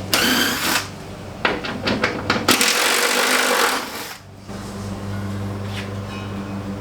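A power tool runs in two short bursts with a few clicks between them, driving in the tire carrier's hinge bolts. A steady low hum follows.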